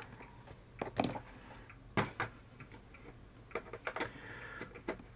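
Irregular clicks and light knocks, about eight of them, from computer hardware, plugs and cables being handled.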